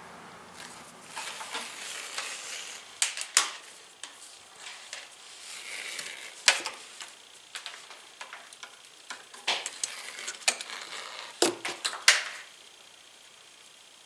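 Soft plastic sheathing, slit by a wire stripper, being peeled by hand off stranded copper lamp cord: crackly rustling with a scattering of sharp snaps and ticks, the loudest about a third of the way in, near the middle and near the end.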